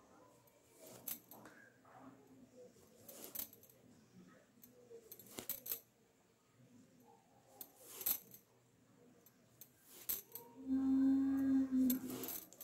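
Needle and red thread being worked through dusuti cross-stitch cloth stretched in a plastic embroidery hoop: faint scattered taps, rustles and a few sharp ticks. Near the end a steady low hum at one pitch lasts about a second and a half.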